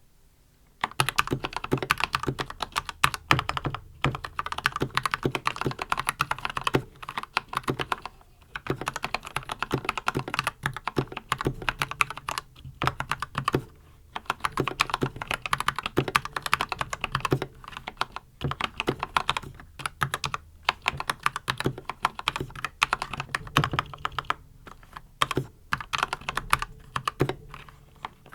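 Continuous typing on a Red Dragon Kumara mechanical keyboard fitted with lubed red linear switches and PBT Dolch keycaps: a rapid stream of keystroke clacks beginning about a second in, with a few brief pauses.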